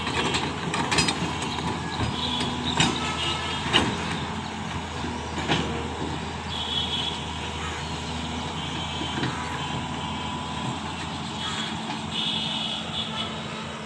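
Link-Belt Sumitomo LS-3400 long-reach excavator's diesel engine running steadily as the machine digs, with several sharp knocks and clanks in the first few seconds.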